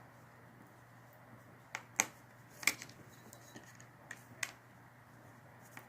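Small sharp clicks and taps, about seven at uneven intervals, from hand tools and tiny parts being handled while a phone is taken apart.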